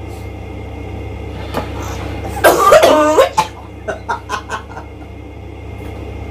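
A loud vocal outburst about two and a half seconds in, then a man laughing in a quick run of short bursts, over a steady low hum.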